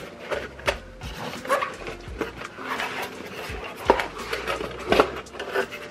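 Cardboard shipping box being opened by gloved hands: flaps pulled back and the cardboard rustling and scraping, with a couple of sharper knocks about four and five seconds in.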